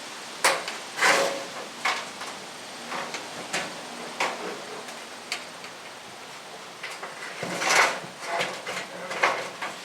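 Corrugated steel arch panels of a metal building clanking and scraping as they are lifted into place: irregular sharp knocks, with longer scrapes about a second in and again near the end.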